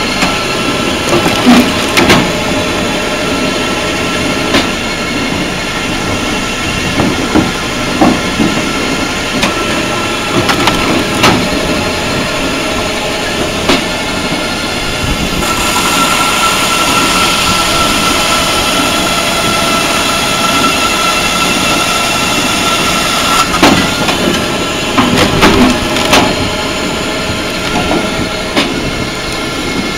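Firewood processing machine running: a steady engine-driven mechanical noise with repeated sharp knocks and clatters. About halfway through a steady high whine joins in for several seconds, then stops, followed by a cluster of knocks.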